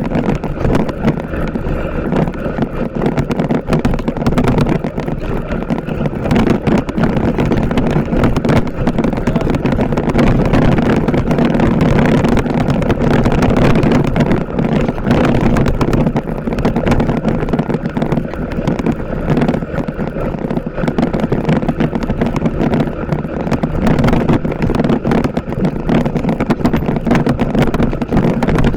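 TVS Apache RTR 160 4V motorcycle's single-cylinder engine running steadily while being ridden.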